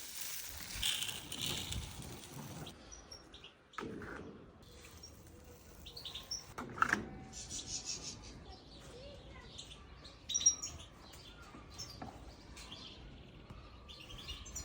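Small birds chirping in many short, high calls, with rustling in the first few seconds and a few sudden sharp sounds, the loudest about ten seconds in.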